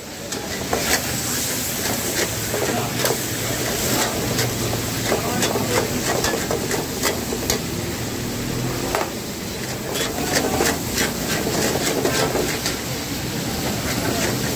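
Chicken pieces frying in hot oil in a steel karahi, a steady sizzle, with a metal ladle knocking and scraping against the pan many times as the pieces are turned.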